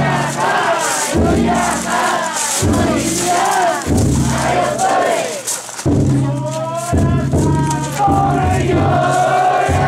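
Crowd of festival-float bearers chanting and shouting together in rhythm, over a deep drum struck about once a second inside the float.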